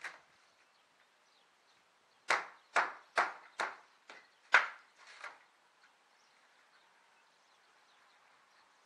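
Sharp wooden knocks on old roof planks being worked loose: one at the start, then a run of about seven, roughly two a second, from about two seconds in until just past five seconds.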